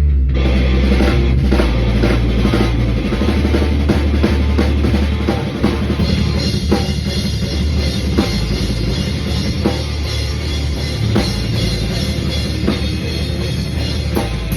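Live rock band rehearsal: a drum kit with bass drum and snare playing loudly under distorted guitar and bass, with heavy, steady low end.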